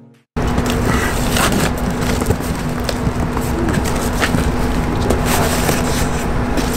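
Cardboard box and packaging being handled and torn open, with crackling and rustling, over a steady low hum.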